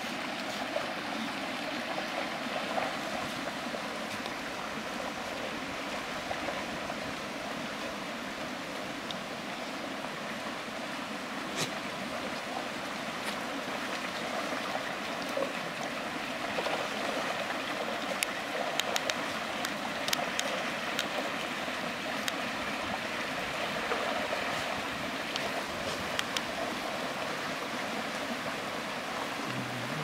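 Shallow rocky stream running steadily while a herd of miniature goats wades across it, with scattered short clicks and splashes from their hooves, more of them in the second half.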